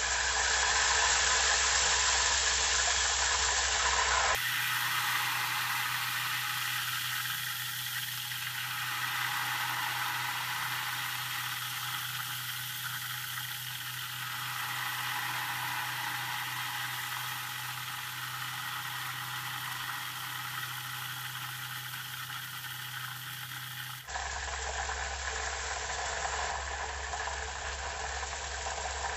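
Thin maida batter being poured in a stream into hot oil, sizzling and frothing hard in a steel pot, over a steady low hum. The sound changes abruptly about four seconds in and again near the end.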